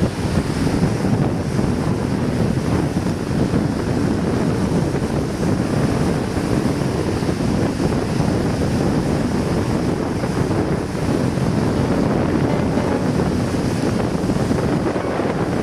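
Wind buffeting the microphone outdoors: a loud, steady rushing noise that flutters in the low end.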